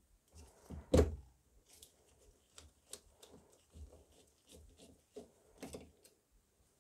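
Hands handling a 3D printer's hotend assembly and its plastic cable chain: scattered small clicks, knocks and rattles, the loudest about a second in.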